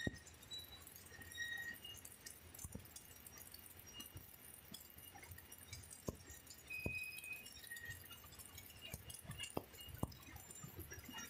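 Faint water dripping and trickling into the stainless-steel tank of a screw poultry pre-chiller, with scattered sharp drips and clinks.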